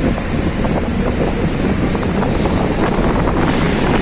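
Strong storm wind gusting with heavy rain, buffeting the microphone in a loud, steady rush.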